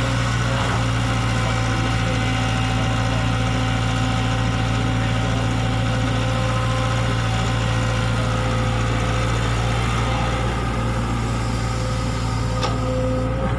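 Diesel engine of an E120B hydraulic excavator running steadily, with a few sharp ticks near the end.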